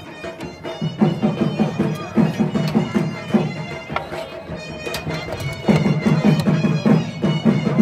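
Music with a reedy wind-instrument melody over a pulsing low beat.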